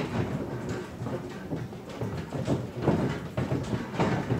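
A building rattling and creaking as it sways in an earthquake: irregular knocks and clatter over a low rumble.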